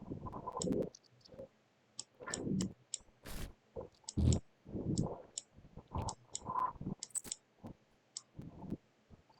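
Synthetic footsteps generated by a RAVE variational autoencoder and decoded through a decoder trained on water sounds: irregular soft, muffled thuds mixed with short, sharp high clicks, the steps only partly blended with the watery timbre.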